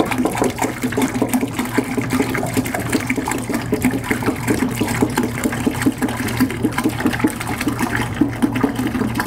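Chilled spring water pouring from a plastic gallon jug into a plastic fermenting pail of cooled wort, splashing steadily into the liquid as the batch is topped up to 5 gallons.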